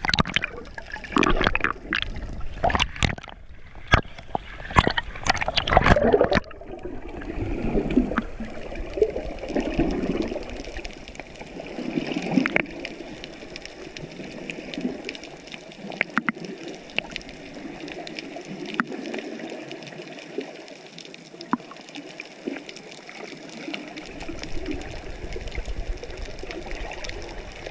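Water splashing and slapping against a GoPro in its housing at the surface for about the first six seconds, then the muffled sound of the camera underwater: low bubbling and gurgling with scattered faint clicks.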